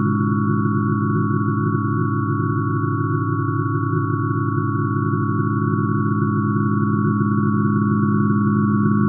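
Synthesized sound of hydrogen's emission spectrum, with its spectral lines scaled down many octaves into audible sine tones. It is a steady, unchanging drone: a dense cluster of low tones with two higher tones held above it.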